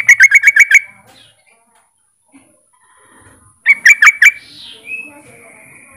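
Yellow-vented bulbul calling: a quick, loud burst of about six bubbling notes at the very start, and a second burst of about five notes about four seconds in. It is the bulbul's call to rivals, used to provoke other bulbuls into calling.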